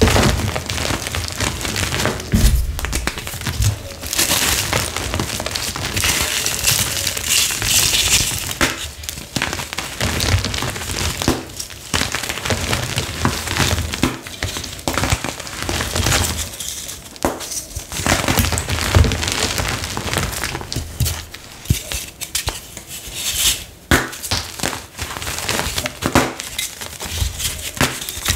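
Blocks of dyed gym chalk squeezed and crumbled in bare hands: continuous crisp crunching and crackling as the blocks snap and break into flakes and powder, with short pauses between squeezes.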